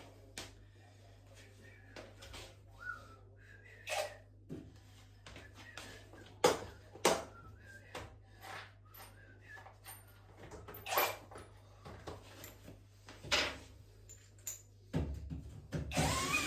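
Irregular short knocks and clicks, about a dozen spread through, over a faint steady hum. Shortly before the end a louder steady noise with a wavering tone starts.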